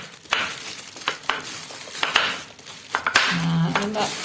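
Knife slicing peeled fresh turmeric root: a series of irregular cutting strokes about a second apart, with a short low hum near the end.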